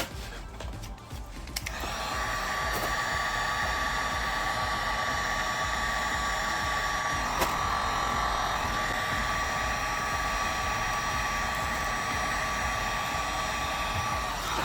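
A small electric blower motor switches on about two seconds in and runs steadily with a high whine.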